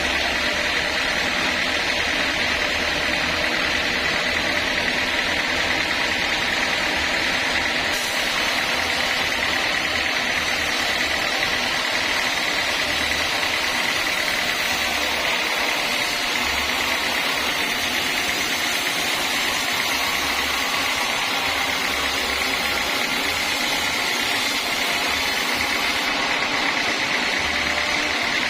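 Engine-driven sawmill saw running steadily, an even mechanical drone with a strong high hum that holds at the same level throughout.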